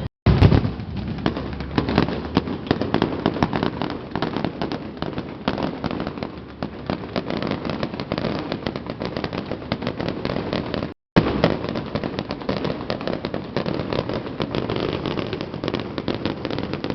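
Fireworks display going off: a dense, continuous barrage of pops and crackling bursts over a low rumble. The sound cuts out briefly right at the start and again about eleven seconds in.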